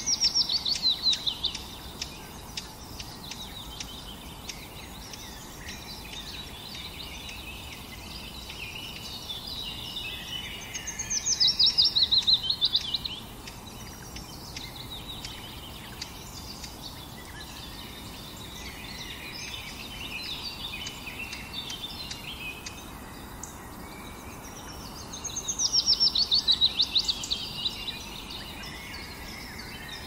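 Songbirds singing. Three times a bird gives a loud, fast trill of notes falling in pitch, each about two seconds long, with quieter chirping from other birds in between over a steady background hiss.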